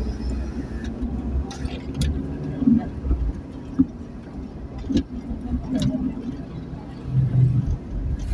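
A vehicle driving, most likely the ambulance: steady engine and road rumble with a few sharp clicks and knocks.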